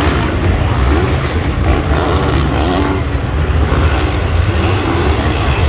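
Motocross bikes racing on a dirt track, their engines rising and falling in pitch as the riders accelerate and back off.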